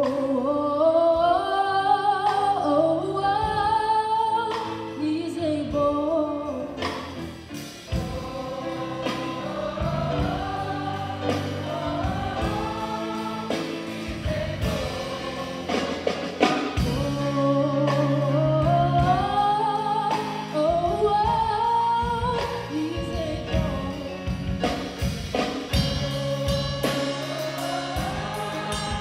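High school gospel choir singing in harmony, accompanied by keyboard and a drum kit.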